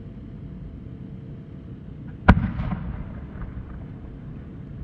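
Aerial firework shell: one sharp boom about two seconds in that echoes briefly, followed by a few faint crackles, over a low steady outdoor rumble.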